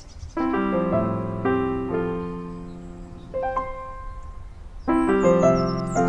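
Background piano music: soft groups of notes struck every second or so, each ringing and fading away.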